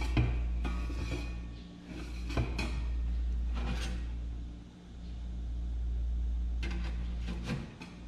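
Metal stove parts and steel stovepipe sections being handled, with several sharp clinks and knocks near the start, in the middle and near the end. A steady low hum swells and dips under them.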